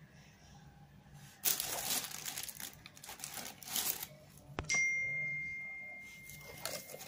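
Tissue paper and wrapping crinkling in a shoebox as a new skate shoe is lifted and turned. About halfway through, a sharp click is followed by a single clear ringing tone that slowly fades over about two seconds.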